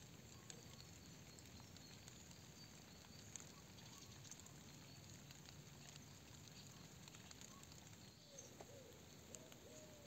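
Faint outdoor garden ambience: a soft steady hiss with scattered small ticks. Near the end, a bird gives a few short, low calls.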